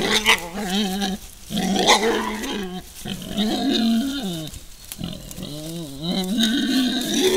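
Wild boars calling during a fight: a series of about four long, wavering low calls, each lasting about a second, with short breaks between them.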